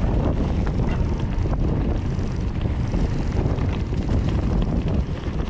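Wind buffeting the microphone during a mountain-bike trail ride, over a steady low rumble of the tyres on the ground, with scattered small clicks and rattles from the bike.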